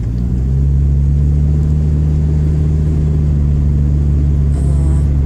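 Car engine and road noise heard from inside the cabin: a steady low drone that swells slightly just after the start and then holds even.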